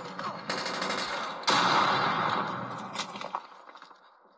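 First-person-shooter game gunfire sound effects: a burst of shots about half a second in, then a louder burst about a second later that rings out and fades almost to quiet near the end.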